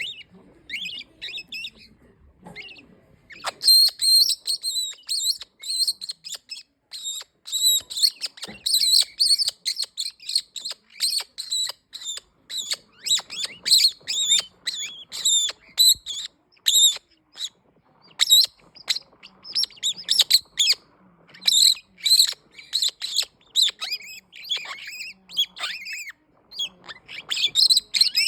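Red-winged parrot calling: a long run of short, sharp, high notes repeated several times a second, starting up after a few scattered calls in the first seconds.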